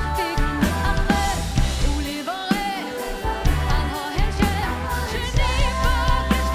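A woman singing lead into a microphone over a live pop band, with bass guitar and drums keeping a steady beat.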